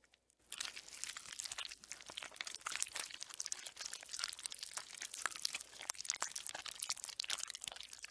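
Dense fine crackling: many small, sharp clicks and crunches in quick, uneven succession, starting about half a second in.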